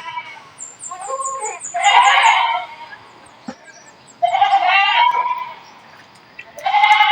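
Woodpecker nestlings begging at the nest while being fed: four short, harsh calls, each under a second long, the last three the loudest. A rapid run of thin, high notes sounds over the first two calls.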